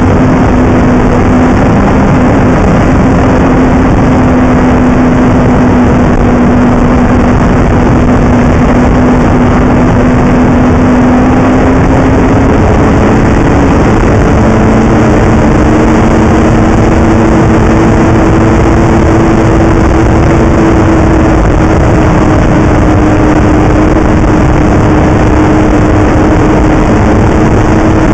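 Snowmobile engine running loudly and steadily at trail speed, its drone stepping up in pitch about halfway through, under a constant heavy rush of noise.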